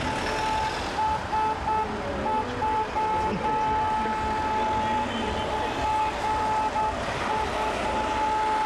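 A vehicle horn held down almost without pause, its steady tone broken by many short, irregular gaps, over the engine and tyre noise of slow-moving vehicles.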